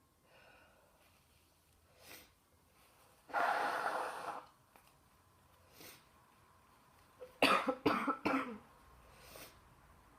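A woman with a cold breathing heavily, with a long, noisy breath a little over three seconds in, then a quick fit of four or five coughs later on.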